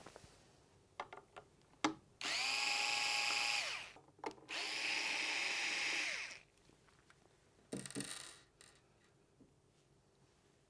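Cordless power screwdriver running twice, about two seconds each time, backing screws out of a metal battery plate; its whine drops in pitch as the motor stops. A few clicks come before and between the runs, and a short scraping noise comes about eight seconds in.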